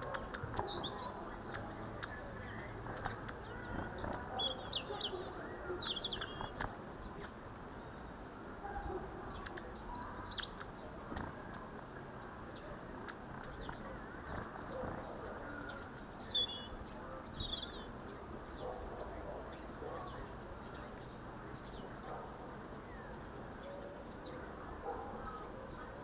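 Small garden birds chirping in short, high calls, busiest in the first several seconds and then scattered, over a steady outdoor background hiss.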